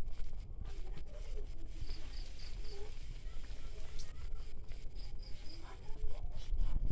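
Pot of misua noodle soup at a rolling boil, steady low bubbling. A few faint high chirps come in short runs of three or four.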